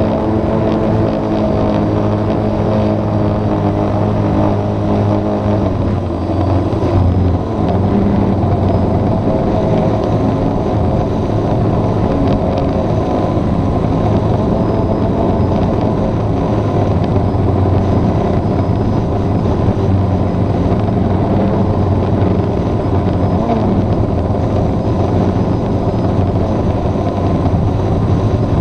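Camera drone's electric motors and propellers whirring steadily, heard close from the drone's own camera. The motor pitch shifts about six seconds in, then holds steady again.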